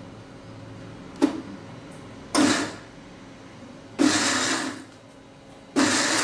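Electric mixer grinder (mixie) pulsed in short bursts to chop blanched spinach and green chilies: a brief blip about a second in, then three bursts of about half a second to a second each, roughly a second and a half apart, the last running on at the end.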